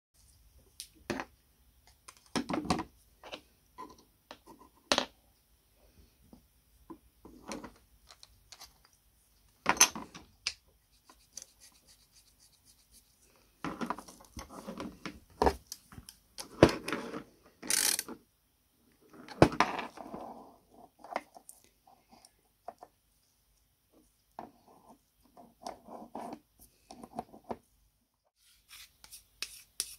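Metal parts of an antique seed planter's drive shaft being handled and fitted together: irregular clinks, clicks and knocks, with short scraping and rubbing as a bevel gear, spring, collar and lever slide onto and turn on the steel shaft.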